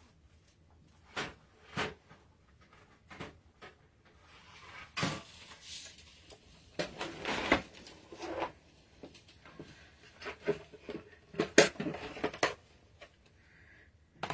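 Scattered knocks, clatter and rustling as craft tools and a die-cutting machine are moved about and set down on a table; the knocks come thickest about ten to twelve seconds in.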